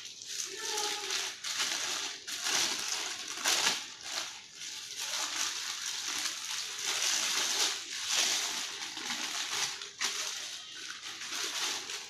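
Clear plastic bag crinkling and rustling in irregular bursts as it is pulled off a ceiling fan motor.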